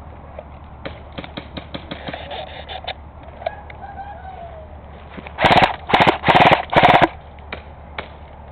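Airsoft rifle firing four loud bursts of rapid full-auto fire about five to seven seconds in. Earlier there are scattered pops and clatters of other airsoft guns shooting farther off.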